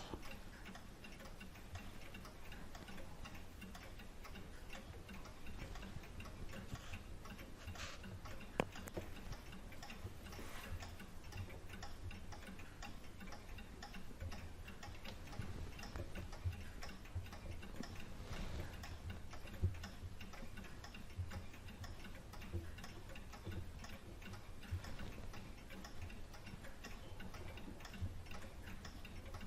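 Faint, steady ticking of a mechanical clock, with one sharper click about a third of the way through.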